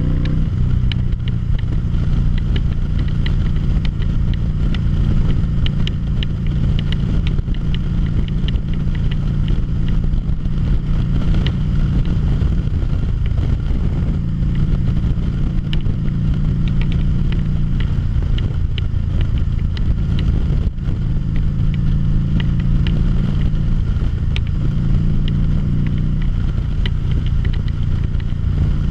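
A 2013 Harley-Davidson V-Rod Muscle's liquid-cooled Revolution V-twin running under way. The engine note eases off and picks up again several times, with scattered light ticks over it.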